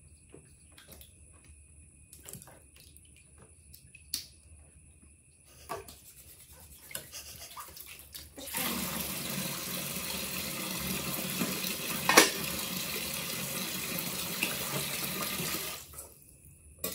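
Tap water running, starting about halfway through and stopping shortly before the end, with one sharp knock in the middle. Before the water starts, only a few small knocks and taps.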